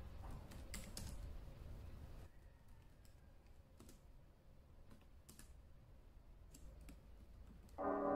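Sparse, faint keystroke clicks of typing on a Samsung laptop keyboard, and music comes in near the end.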